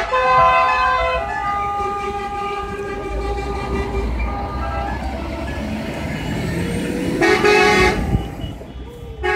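Several car horns honking from a slow convoy of passing cars, vans and trucks, over the rumble of engines and tyres. Held horn notes sound early on, and a loud horn blast comes about seven seconds in.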